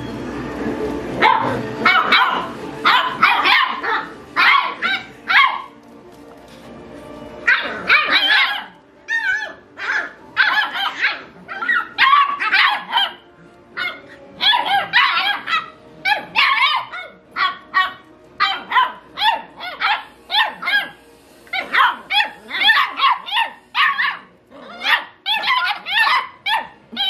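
Beagle puppies about eight weeks old barking and yipping in quick runs of short calls while they play-fight, with a brief lull about six seconds in.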